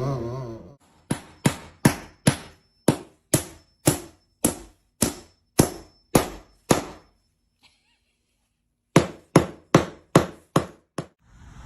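A series of sharp knocks: about a dozen evenly spaced strikes at roughly two a second, a pause of about two seconds, then six or seven more in a quicker run.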